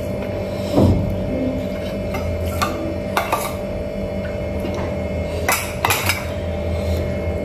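Steel spoon and steel dishes clinking as food is eaten by hand and served from a steel bowl: a few separate sharp clinks, several close together around the middle. A steady hum runs underneath.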